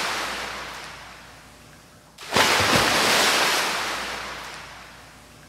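Waves breaking on a shore. One wave washes out and fades, then a second breaks suddenly about two seconds in and dies away slowly.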